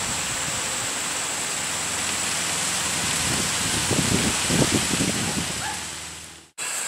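A steady, even rushing noise with a faint high, steady whine over it, and a few soft low rumbles about four to five seconds in. It fades out to a brief silence just after six seconds.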